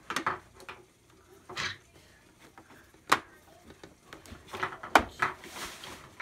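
Hard plastic toy playset pieces clicking and knocking as they are handled and fitted together: a few scattered sharp clacks, the loudest about three seconds in and about five seconds in.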